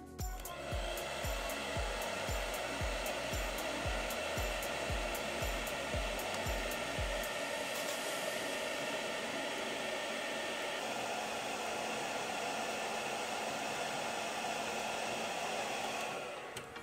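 Hair dryer blowing hot air steadily onto blue heat-shrink wrap around a pack of 18650 lithium cells, shrinking it tight. It switches on just after the start and winds down near the end.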